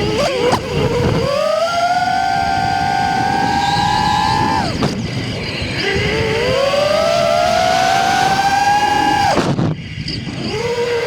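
FPV racing quadcopter's brushless motors whining, pitch climbing as throttle is added and dropping sharply twice, about five seconds apart, when the throttle is chopped, then rising again.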